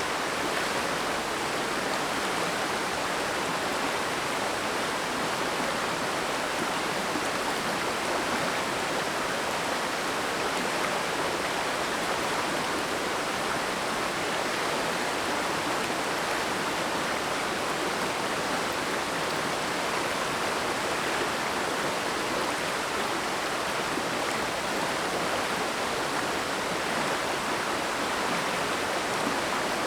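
Mountain stream rushing over rocks, a steady full wash of flowing water.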